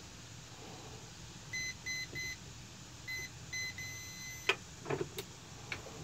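Master Lock digital lock box keypad: five short electronic beeps as a code is keyed in, then one longer beep, and the lock releasing with a sharp click about four and a half seconds in, followed by a few light knocks as the lid is opened.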